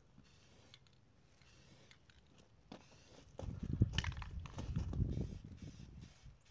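Wind buffeting the microphone in uneven gusts that start about halfway through, with a few light clicks and rustles.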